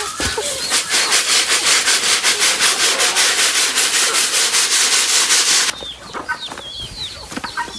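Guinea fowl giving harsh, rasping calls in a rapid rhythm of about five to six a second, cut off suddenly near the end. Quieter high, down-slurred bird peeps follow.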